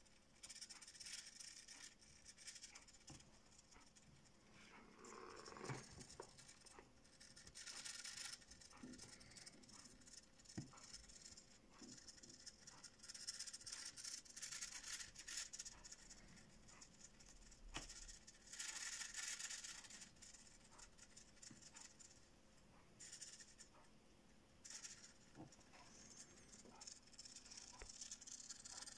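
Small hobby servo motor whirring faintly in short bursts of a second or two, several times over, as a joystick swings it back and forth, with a few faint clicks in between.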